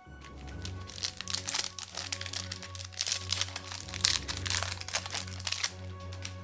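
Rapid crinkling and crunching of a trading card pack's wrapper being handled, from about half a second in until shortly before the end, over background music with a steady bass line.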